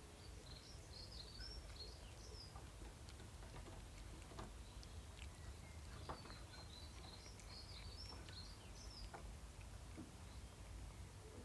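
Faint bird chirping in two short bouts of quick twittering, with scattered faint clicks between them over a low steady background hum.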